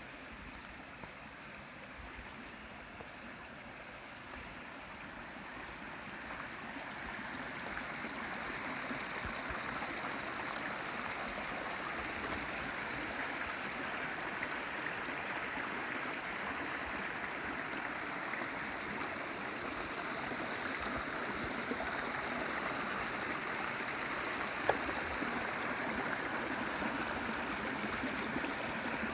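Mountain stream running steadily, a continuous wash of water that grows louder over the first ten seconds or so and then holds; a single short click about 25 seconds in.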